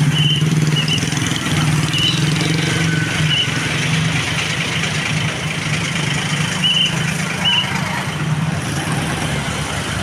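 Tour bus diesel engine idling steadily while warming up, with a few short high chirps over it.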